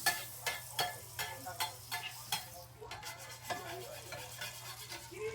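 Food frying faintly on a flat-top griddle, with a quick series of soft taps about two to three a second that thins out after about three seconds.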